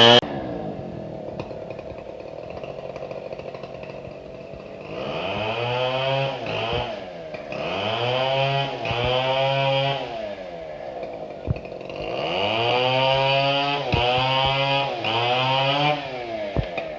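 Chainsaw engine, steady and lower at first, then revved up and down several times with its pitch rising and falling as it cuts into a fallen tree.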